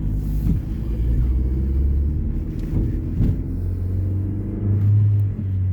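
Car engine and road noise heard from inside the cabin while driving, a low steady rumble; the engine note moves a little higher about four seconds in.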